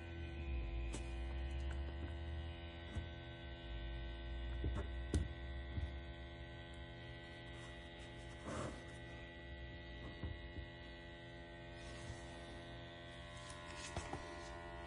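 The eufy X10 Pro Omni robot vacuum's base station runs a mop wash with a steady electric motor hum and a whine of several pitches. A low rumble fades out about halfway through, and a few faint clicks come and go.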